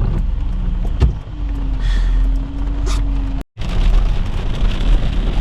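Road and engine noise inside a moving car, a steady low rumble with a couple of light clicks. It cuts out abruptly about three and a half seconds in and comes back with a brighter hiss.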